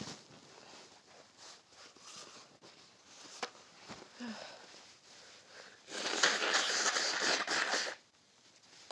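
A person in a sneezing fit sniffling faintly, then a hard, noisy blast of air through the nose lasting about two seconds, as in blowing the nose, starting about six seconds in.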